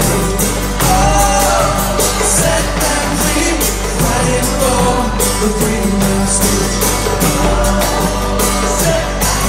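Live singer-songwriter band music: strummed acoustic guitar and percussion, with a voice singing a wavering melody over it.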